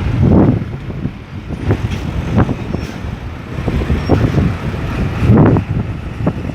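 Road traffic: cars and heavier vehicles passing close by in uneven surges, loudest about half a second in and again around five and a half seconds.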